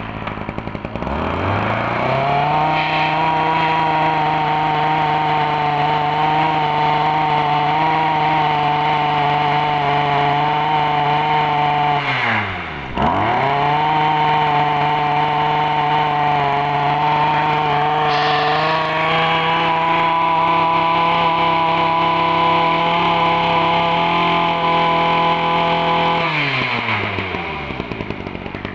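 Ryobi 26cc two-stroke brush cutter engine with a sound-damping muffler, starting up and revving to a steady high speed. About twelve seconds in it drops sharply and picks straight back up, then holds steady until it winds down near the end. The throttle is not fully open, so it is not running at full speed.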